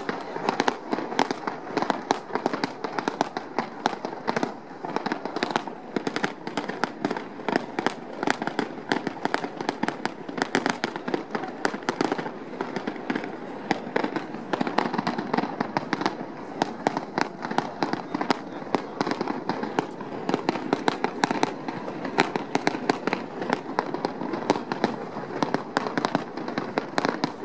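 Aerial fireworks going off in a dense, continuous barrage of bangs and crackles, several a second.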